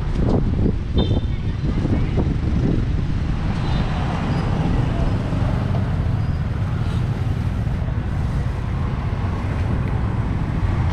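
Outdoor market-street ambience: a steady low rumble of road traffic with people talking in the background, the voices clearest in the first few seconds.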